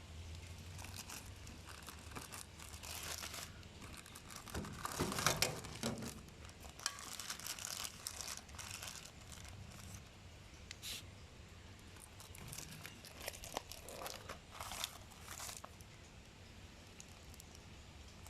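Packaging being handled during unboxing: irregular crinkling and tearing rustles, loudest about five seconds in, over a faint steady low hum.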